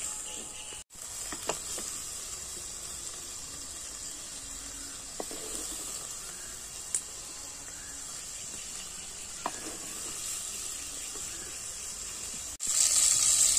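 Pieces of kuche (swamp eel) sizzling steadily in hot mustard oil in a clay pot, with a few light clicks as a wooden spatula lifts them out. The sound drops out briefly about a second in and again near the end, and the sizzle is louder after the second drop.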